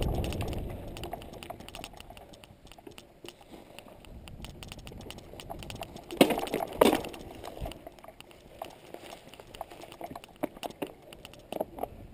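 Bicycle rolling slowly on a grassy woodland trail: the rolling noise fades over the first couple of seconds, leaving light rapid ticking and rattling, with two louder knocks about six and seven seconds in.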